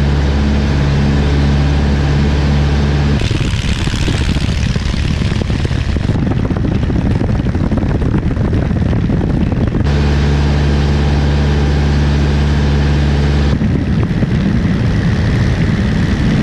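Single-engine light airplane's engine and propeller running steadily at high power during takeoff and climb, a droning hum in the cabin. Twice it gives way to a loud rush of wind over an outside microphone, with the engine fainter beneath.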